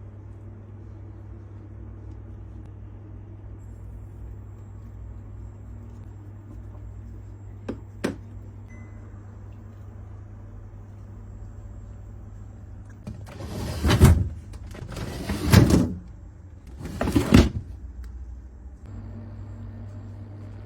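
Something sliding three times in quick succession, each slide swelling up and fading over about a second. Before that come two small clicks about eight seconds in, all over a steady low hum.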